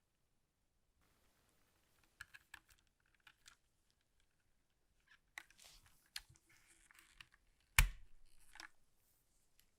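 Unboxing handling noises: scattered clicks and rustling of packaging, with one loud knock about eight seconds in.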